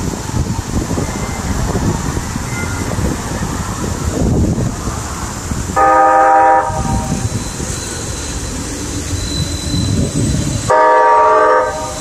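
QLine Detroit streetcar's horn sounding two blasts, each about a second long and about five seconds apart, warning a car that is parallel parking in its path. Wind rumbles on the microphone underneath.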